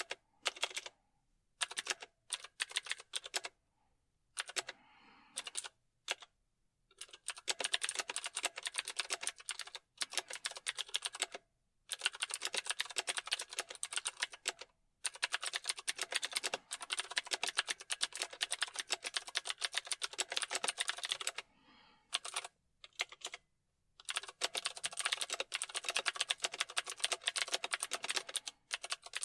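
Typing on a computer keyboard: fast runs of key clicks lasting a few seconds each, broken by short pauses.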